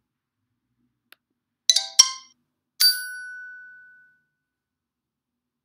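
A faint click, then a few quick tinkling tones and a bell-like ding that rings out and fades over about a second: the lesson software's correct-answer chime as the right answer is selected.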